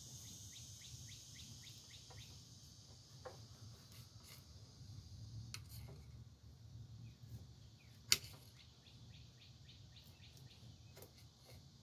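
A table knife cutting a green tomato on a ceramic plate, with a few faint clicks and one sharp click of the blade against the plate about eight seconds in. Behind it, a steady high insect drone and a short falling chirp repeated about three times a second.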